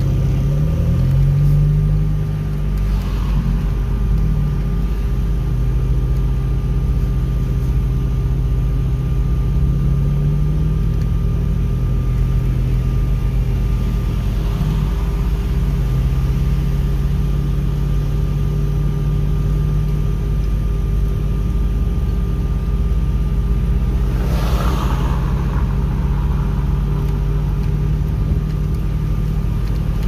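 Car engine and road rumble heard from inside the cabin while driving. The engine note shifts in pitch over the first few seconds as the car gathers speed, then runs steady, with a few brief rushes of noise along the way.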